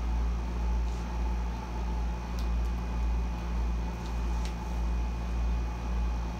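Air conditioner running with a steady low hum that swells and fades about once a second, with a couple of faint light ticks.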